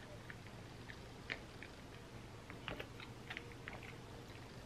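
Faint, close-miked chewing of a mouthful of ice cream sundae: scattered soft mouth clicks and smacks, busiest in the second half.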